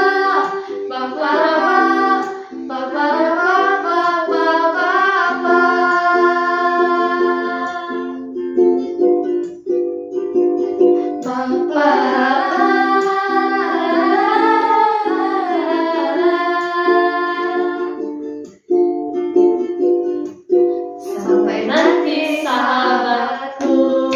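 Several young women singing wordless "pa-pa-ra-ra" syllables together over a strummed ukulele. The voices drop out twice, for a few seconds each, while the ukulele keeps playing, then come back briefly near the end.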